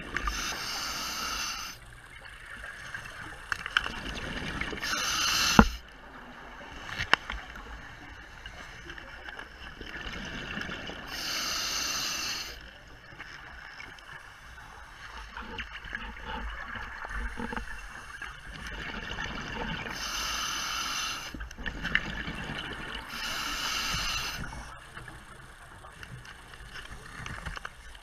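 Scuba diver breathing through a regulator underwater: five bursts of exhaled bubbles, each about a second long and unevenly spaced, with a quieter hiss and a couple of sharp clicks between them.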